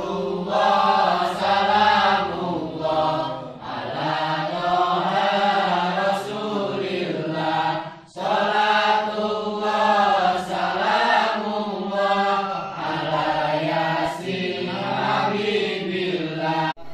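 A group of voices chanting a salawat, devotional praise of the Prophet Muhammad, together in long drawn-out sung phrases, with one short breath pause about eight seconds in.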